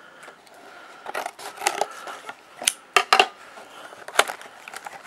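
Scissors snipping through the cardboard top of a trading-card box, then the box being handled, giving a run of separate sharp clicks and snips.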